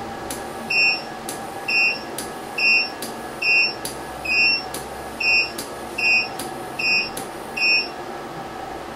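Elinchrom BXRi 500 studio flash heads powered by a Tronix Explorer XT3 battery pack, fired nine times in a row: each firing is a sharp click followed about half a second later by a short high beep as the head recycles and signals it is ready. The fire-and-beep cycle repeats a little under once a second.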